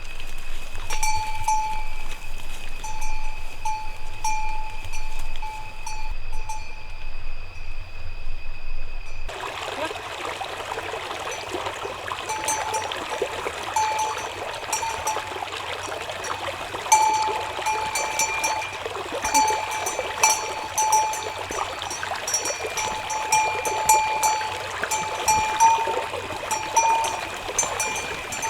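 A bell-like ringing tone sounds over and over at irregular intervals. About nine seconds in, a steady rushing haze like running water comes in beneath it.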